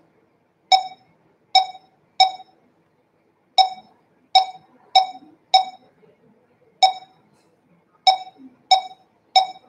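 1D laser barcode scanner beeping eleven times at irregular intervals, each short beep marking a successful read of a box's barcode label at normal reading speed.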